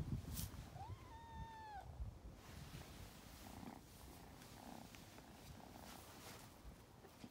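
Tabby kitten meowing once, a call of about a second that rises and then holds before dropping off, after low rustling at the start. Two fainter short sounds follow a few seconds later.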